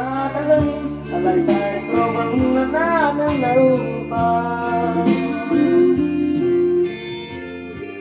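A man singing a Khmer pop song into a handheld microphone over a karaoke backing track. The backing music gets quieter near the end as the song finishes.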